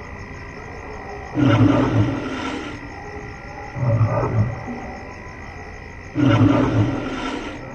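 Dubbed soundtrack of deep animal roars that repeat about every two and a half seconds: a longer roar about a second in, a shorter one near the middle, another long one near the end. A steady high tone runs beneath them.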